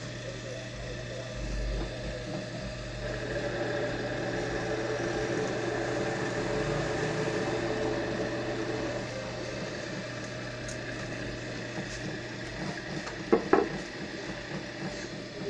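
Bench drill press motor running with a steady hum, growing louder for several seconds in the middle as the bit cuts into a wooden board. A couple of sharp knocks come near the end.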